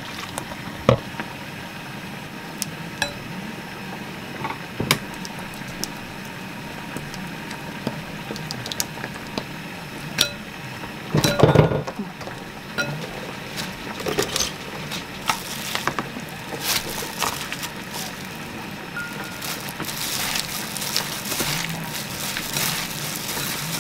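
A wooden spoon tapping and scraping against a glass mixing bowl as sauce and noodles are stirred, with scattered clinks and a louder clatter about halfway through. Toward the end, crinkly rustling of a plastic-gloved hand tossing lettuce and salmon in the bowl.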